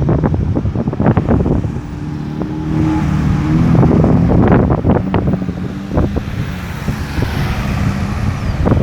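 Road traffic: a vehicle's engine hums past with tyre noise swelling through the middle, while wind buffets the microphone.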